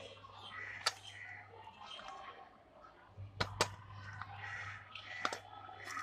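Close-up handling sounds from a small cardboard box held to the microphone: four sharp clicks and taps, two of them close together about three seconds in, with soft rustling over a steady low hum.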